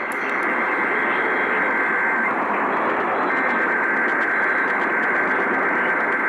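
Radio static: the steady hiss of a radio receiver with no clear signal. A faint steady whistle runs through it and drops out for about a second, a little over two seconds in.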